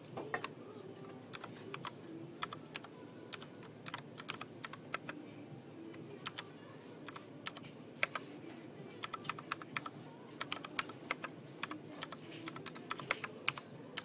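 Typing on a KBtalKing Pro mechanical keyboard: irregular quick runs of sharp key clicks over a low steady hum.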